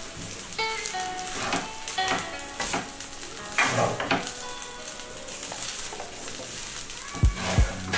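A wooden spatula stirring and turning cooked rice and vegetables in a hot pan, with repeated scraping swishes over a sizzle. The swishes come about once a second and thin out after about four seconds.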